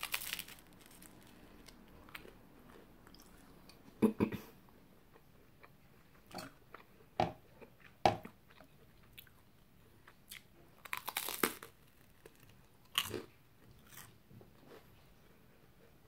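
A person biting and chewing toast dipped in runny egg yolk: a string of short crunches and mouth clicks, the sharpest about four and eight seconds in, with a quick run of crunches around eleven seconds.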